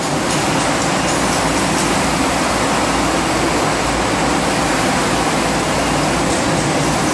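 Glass-bottle frosting production line machinery running: a loud, steady mechanical hum and hiss with no rhythm or sudden events.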